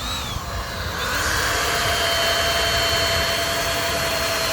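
Handheld electric power tool starting up and running steadily at full speed, a loud hissing whine whose pitch rises and settles about a second in.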